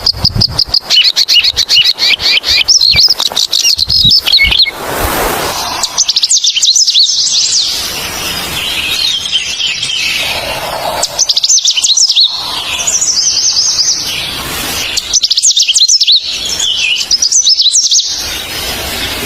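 Several songbirds singing at once: a fast run of repeated high chirps for the first few seconds, then, after an abrupt change, overlapping trills and warbles with loud bursts of song every few seconds.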